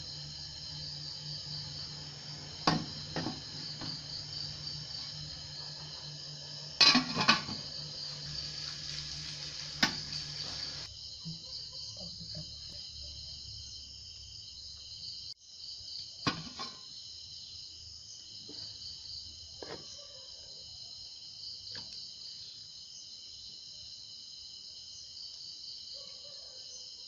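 Crickets trilling steadily at a high pitch, with a low hum that stops about ten seconds in. A few sharp knocks and clinks come from the cooker's metal pot, lid and spoon being handled.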